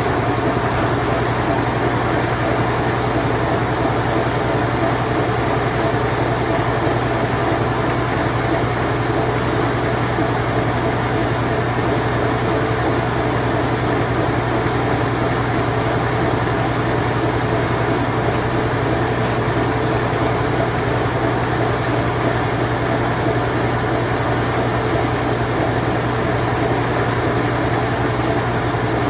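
Late-1980s to early-1990s Whirlpool Imperial Clean Touch washing machine on its spin cycle, running with a steady low hum and an even whirring noise.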